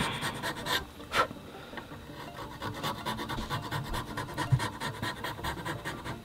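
Small Swiss-made Grobet half-round needle file, 00 cut, rasping back and forth in a groove on a knife handle, sinking the carved cut deeper. Two louder strokes come about a second in, then lighter, steady strokes.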